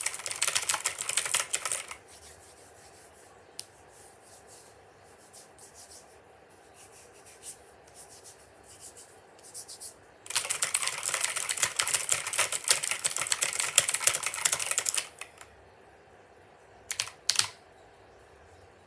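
Mechanical keyboard being typed on: a fast run of keystrokes for about two seconds, then scattered, quieter single key presses, a second fast run lasting about five seconds in the middle, and two separate key clicks near the end.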